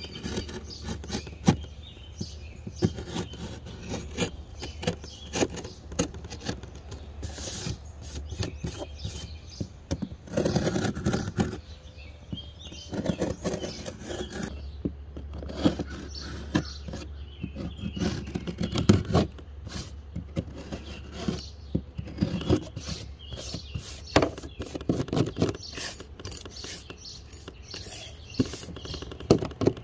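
Utility knife blade scraping and cutting along a crack in a hollow-core door's thin painted skin, in irregular strokes and clicks, cleaning out the crack before it is filled with body filler.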